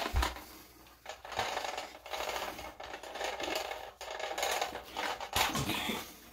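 Hands working the plastic fittings of a non-electric bidet's hot water hose connection: clicking, rattling and scraping of plastic parts, with a sharp knock at the start and another about five seconds in.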